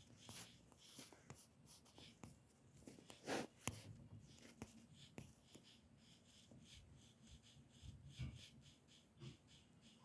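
Near silence: faint scattered clicks and rustling, with one brief louder knock about three and a half seconds in.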